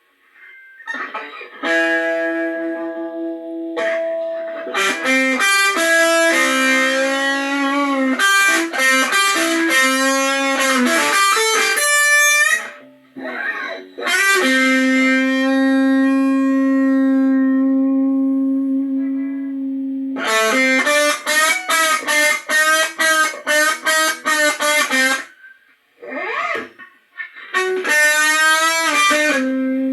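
Electric guitar playing a blues solo, mixing long held notes and string bends with quick runs of picked notes.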